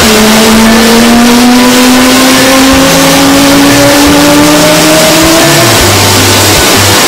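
A KAI T-50-family jet's single turbofan engine spooling up on start: a loud roar with a whine that rises steadily in pitch over about five seconds.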